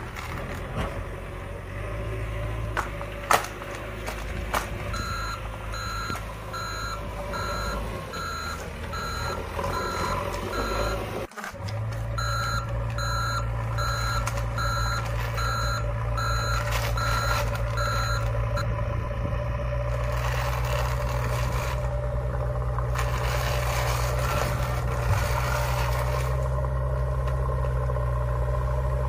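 Heavy vehicle's engine drone with a reversing alarm beeping in a steady rhythm from about five seconds in until about eighteen seconds. The sound cuts out briefly about eleven seconds in, and the engine drone is louder after that.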